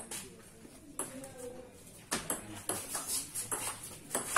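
Table tennis ball clicking off the paddles and table in a rally that starts about two seconds in: a quick run of sharp clicks a few tenths of a second apart.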